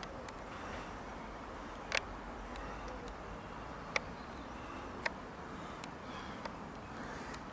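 Distant jet engine noise from an Airbus A320-232 descending overhead, a steady even rush. Sharp clicks are scattered through it, the loudest about two seconds in.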